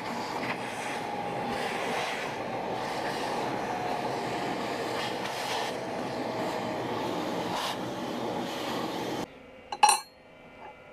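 Shop vacuum running steadily as its nozzle sucks steel chips off the mill table, with small ticks of chips going up the hose; it is switched off abruptly about nine seconds in. Right after, a single sharp metal clink as a wrench is picked up off the steel table.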